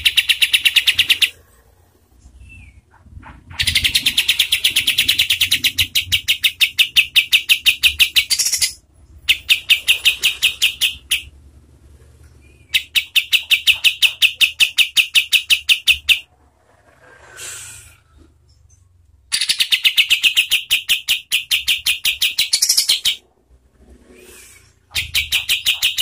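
Kapas tembak bulbul singing its rapid 'tembakan': long, fast rolls of one high note repeated many times a second, each roll lasting from one to about five seconds, six rolls with short pauses between them.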